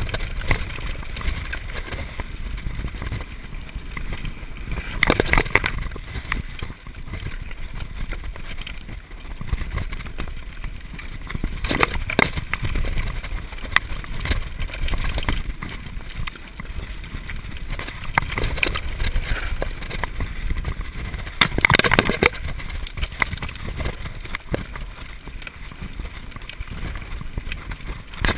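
Mountain bike descending a rough dirt trail: a steady rumble of tyres on the ground and wind rushing on the microphone, broken by sharp knocks and rattles of the bike over bumps, the loudest about five and twenty-two seconds in.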